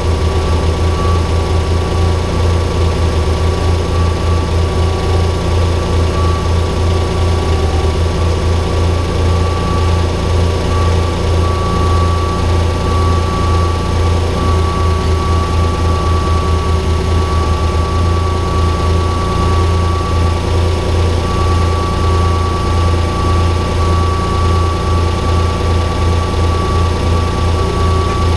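Tractor engine running steadily at a constant speed, with a low pulsing rumble and a thin steady whine above it.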